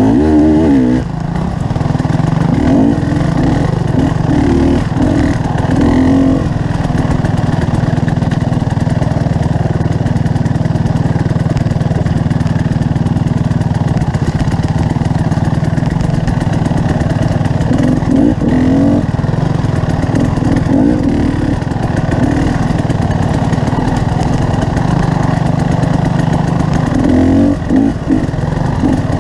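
Motorcycle engine running steadily while riding, its note swelling briefly now and then.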